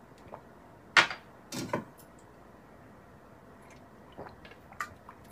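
A sharp click about a second in, then a short muffled sound, and faint small clicks near the end: a glass being handled and sipped from.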